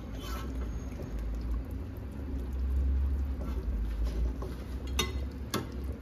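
Pot of mutton nihari bubbling over a steady low hum, with two light clicks of a spoon against the pot near the end.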